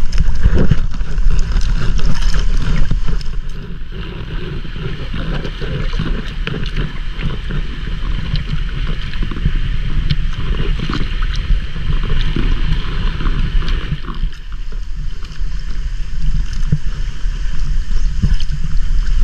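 Water splashing and lapping as a swimmer moves in the sea right beside a small wooden outrigger boat, with wind buffeting the microphone. It is louder for the first three seconds or so, then settles into quieter lapping with small splashes.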